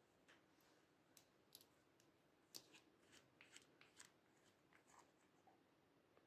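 Faint, scattered clicks and ticks of a glass nail-polish bottle and its brush cap being handled, with a quick cluster of ticks about two and a half to four seconds in.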